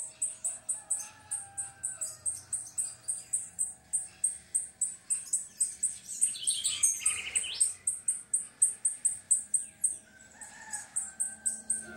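A bird chirping a high, short note over and over, about four to five times a second. A second, different bird call breaks in about six to seven seconds in.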